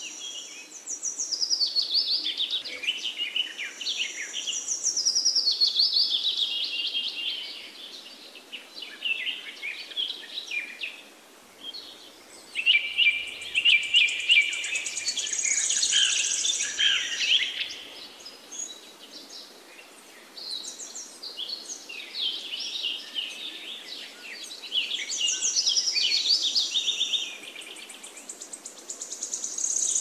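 Several songbirds singing, with quick chirps and trills overlapping in a busy, high-pitched chorus that thins out briefly now and then.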